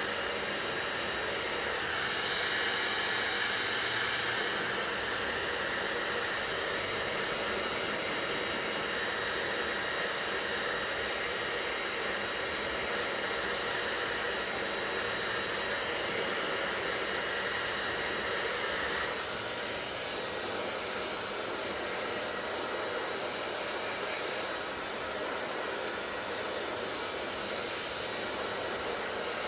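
Hair dryer blowing steadily with a whooshing rush of air and motor hum. Its tone brightens slightly about two seconds in and turns a little quieter and duller about two-thirds of the way through.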